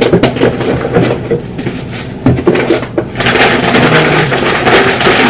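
Paper and cardboard packaging being handled and opened, with scattered crackles and clicks, then a louder continuous rustling from about three seconds in.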